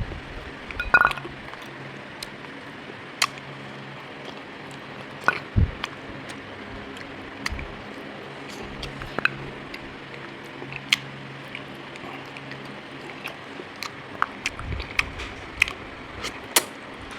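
Scattered small clicks and smacks of someone eating jackfruit, over a steady low background hum.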